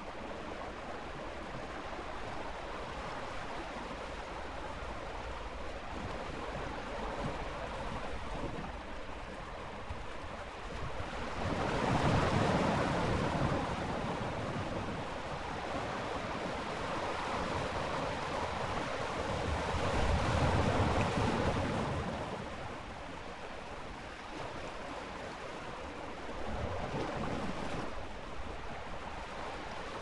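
Ocean waves in steady surf, with two waves swelling and breaking louder about twelve and twenty seconds in.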